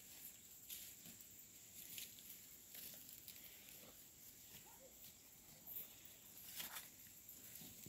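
Near silence in forest undergrowth: faint irregular rustles and crackles of leaves and footsteps, with a thin steady high-pitched whine throughout.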